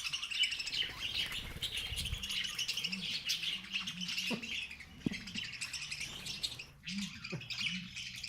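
A flock of budgerigars chattering continuously, many quick overlapping chirps at once, briefly thinning about two-thirds of the way through.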